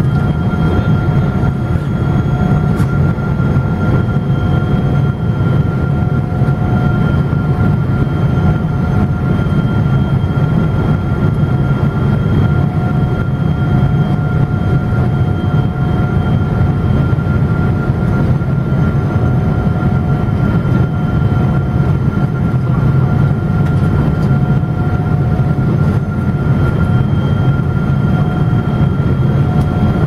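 Boeing 777-200 cabin noise on descent: the jet engines and rushing air make a steady deep rumble, with a few faint steady whining tones over it.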